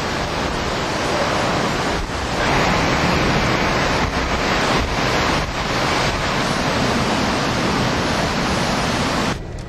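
Hurricane-force wind blowing in a dense, continuous rush, with gusts swelling and easing and buffeting the microphone. The sound drops off abruptly shortly before the end.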